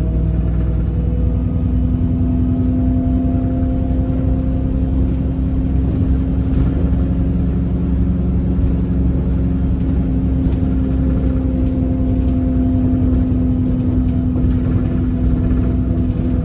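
Alexander Dennis Enviro300 bus engine running with an unusual sound: a steady droning tone that comes in about a second in and holds over a constant low rumble, with fainter higher tones fading in and out.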